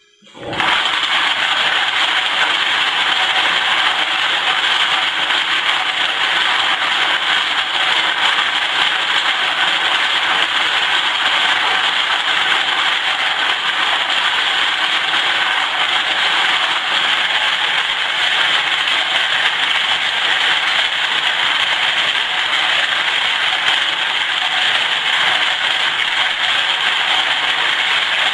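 Lyman Cyclone rotary tumbler running wet. Its drum turns a load of .223 brass cases with stainless steel pin media and water, making a steady, loud rattle of brass and pins tumbling. The rattle starts abruptly about half a second in, as the drum gets going.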